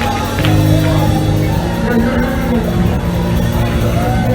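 Live church praise music with long held chords, and congregation voices shouting praise over it.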